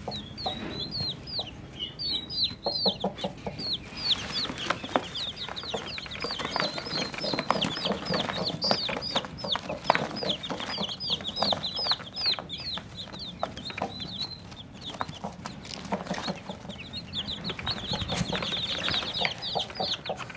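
Newly hatched chicks peeping continuously, many short falling cheeps overlapping, with the low clucks of a broody hen at times.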